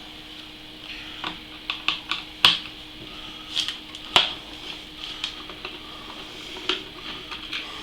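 Irregular small clicks and taps of hard plastic and metal parts being handled and unscrewed on a motherboard, over a steady low hum.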